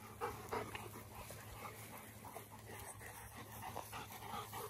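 Cane Corso dogs panting close by, with short, irregular breaths.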